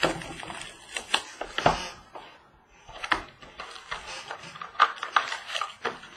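A sealed box of trading cards and its packs being handled and opened by hand: an irregular run of sharp clicks and taps from cardboard and foil wrappers, with a short pause about two seconds in.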